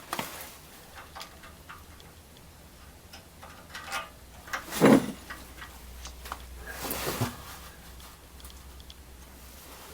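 Scattered light clicks and ticks of hand tools and exhaust parts being handled, with a louder knock about five seconds in and a smaller one near seven seconds.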